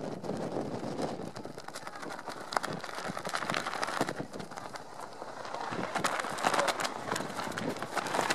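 Irregular knocks and taps over a steady outdoor hiss, getting busier and louder about six seconds in.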